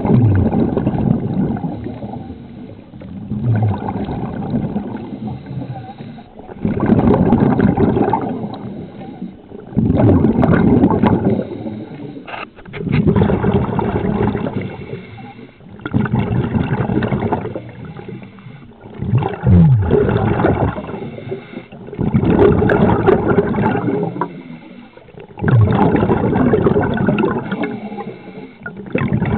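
Scuba diver's exhaled bubbles from the regulator, heard through the camera housing underwater: a loud bubbling gush about every three seconds, each starting sharply and fading before the next breath.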